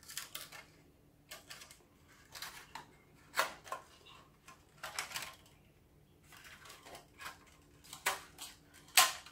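Thin aluminium foil tray being bent and folded by hand, giving a string of short crinkles and crackles with quiet gaps between them, the loudest near the end.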